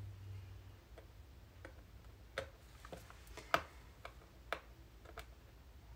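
Sparse, faint ticks and light taps from a small pointed tool and fingertips working fabric against a book board, irregularly spaced, with one sharper click about three and a half seconds in.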